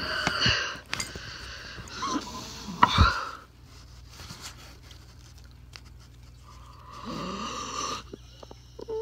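A girl's breathing noises and short wordless vocal sounds, loudest at the very start and around three seconds in, with a longer drawn-out vocal sound about seven seconds in.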